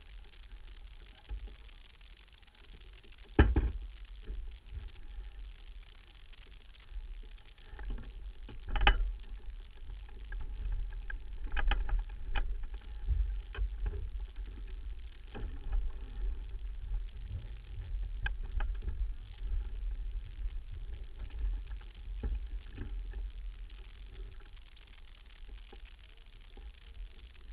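Small sailboat under way: wind rumbling steadily on an exposed microphone, with several sharp knocks, the loudest about three and a half seconds in and another near nine seconds.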